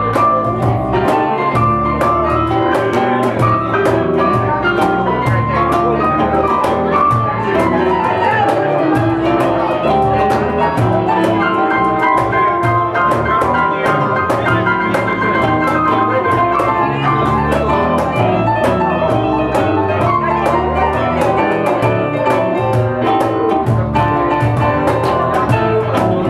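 Live band playing an instrumental passage: electric guitar, electric bass and keyboard with a stepping melodic line, over light percussion ticking in a steady rhythm.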